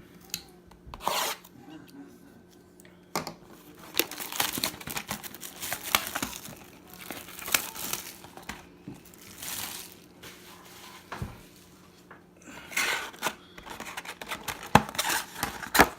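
Plastic wrapping on a box and packs of trading cards being torn open and crinkled, in irregular bursts with a few sharp clicks.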